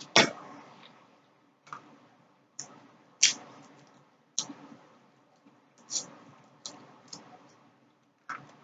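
A person eating close to the microphone: about nine sharp, wet mouth clicks and smacks at irregular intervals while chewing, the loudest near the start and about three seconds in.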